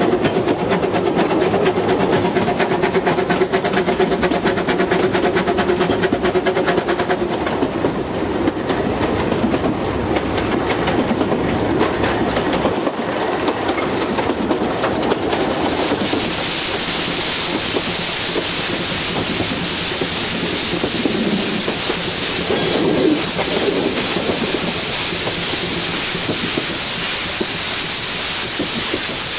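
Two-foot-gauge steam locomotive No. 10 running along the track, with steady fine clicking throughout and a steady whine over the first several seconds. About halfway through, a loud, steady hiss of steam takes over.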